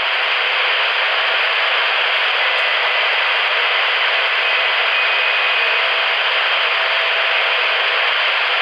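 Two-way radio receiving a keyed-up transmission that is nothing but a loud, steady rush of feedback and distortion with no audible voice: the transmitting station's radio is faulty.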